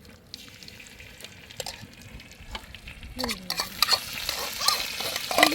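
Food frying in a pan and being stirred with a utensil: scraping and knocking, with the sizzle growing louder about three seconds in.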